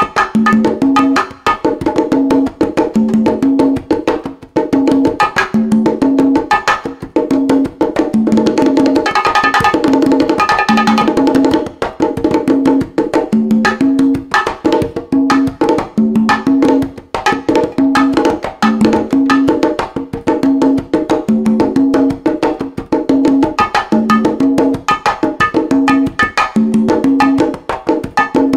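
Conga and bongo duet: a pair of congas plays a repeating pattern of open tones on two pitches, under fast, sharp strokes on a pair of Toca bongos, in a steady Latin rhythm. The strokes grow busier and brighter about a third of the way through.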